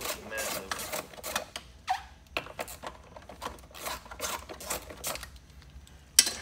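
Screwdriver working on a second-generation Dodge steering column, loosening the airbag's fasteners. Irregular clicks, taps and scrapes of the tool on metal and plastic, with a sharper click near the end.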